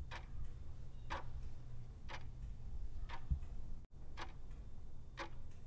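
Clock-tick sound effect, about one short tick a second, counting down the seconds of a quiz answer timer.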